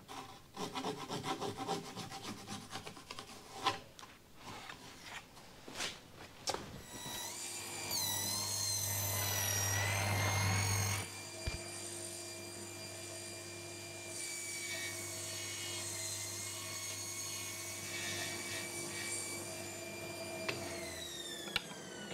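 Woodworking on a thick softwood beam: a few seconds of scraping, rasping strokes, then a power tool starts up with a rising whine, is loudest for about three seconds while cutting, runs on steadily and winds down with a falling whine near the end.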